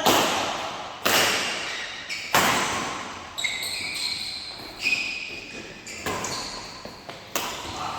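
Badminton rackets smacking a shuttlecock back and forth in a rally: a string of sharp hits about a second apart, each ringing on in the echo of a large hall. Short high squeaks from shoes on the court floor come between the hits.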